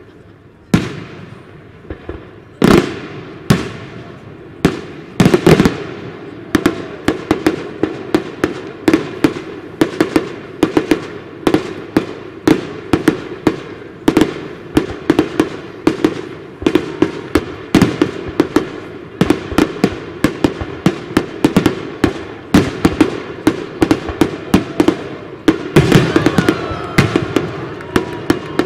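Aerial firework shells bursting in a display: a few widely spaced sharp bangs at first, then a rapid, dense volley of bangs several a second.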